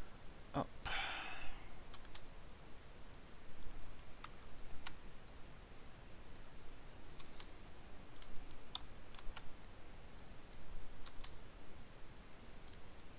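Scattered, irregular clicks of a computer mouse and keyboard.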